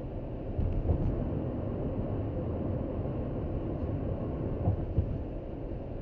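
A car driving at about 75 km/h, its steady road and engine noise heard from inside the cabin. A few low thumps come through about a second in and again near five seconds.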